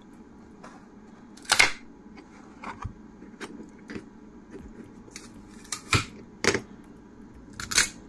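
Sharp plastic snaps and clicks as 3D prints and their supports are popped and peeled off a flexible steel build plate: a string of snaps, the loudest about a second and a half in, and a cluster near six seconds and again near the end.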